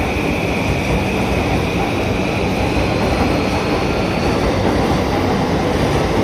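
Electric train running through a railway station: a steady rumble of wheels on rails, with a faint whine that rises slowly in pitch midway.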